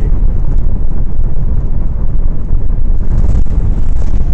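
Airflow in flight under a paraglider hitting the microphone: continuous low wind noise.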